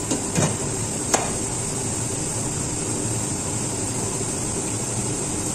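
Steady hiss of a pot of sofrito and water boiling on the stove, with two light clicks in the first second or so.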